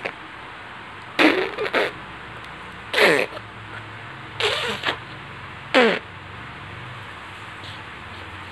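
A voice making four short, playful sounds, each sliding down in pitch, about a second and a half apart.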